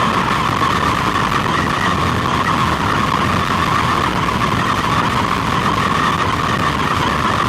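Electric RC buggy running steadily: a constant high motor and drivetrain whine over a noisy rumble from the tyres on the ground.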